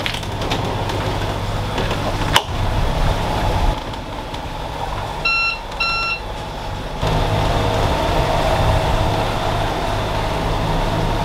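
Catamaran's inboard diesel engine running steadily, with a click about two seconds in and two short electronic beeps from the helm panel around five and six seconds in; about seven seconds in the engine sound grows louder and fuller.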